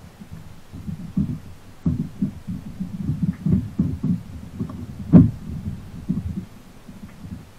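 Irregular dull, low thumps and knocks on a plastic kayak hull, several a second, with one sharper, louder knock about five seconds in.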